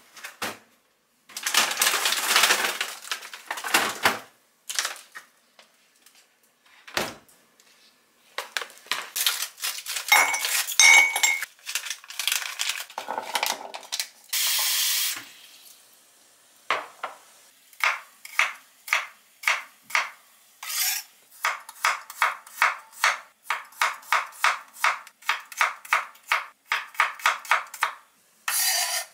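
Kitchen knife slicing garlic cloves on a wooden cutting board: steady strokes about two a second through the second half. Before that, rustling, a plastic bag crinkling and clinks of glass cups.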